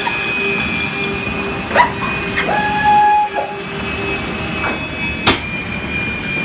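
Motorized power drive units of a Boeing 747-8 main-deck cargo loading system running as a pallet rolls along the roller floor: a steady hum with high whines throughout. A short motor whine rises and then holds for under a second about two and a half seconds in. Two sharp clunks, the loudest sounds, come about two and five seconds in.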